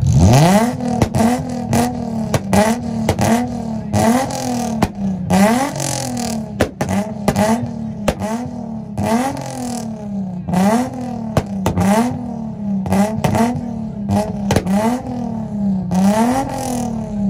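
Tuned car engine revved hard over and over, about once a second, the pitch climbing and dropping each time, with sharp exhaust pops and bangs on the revs.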